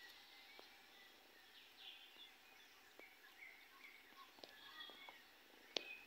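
Near silence: faint outdoor ambience with scattered short bird chirps and a few faint clicks.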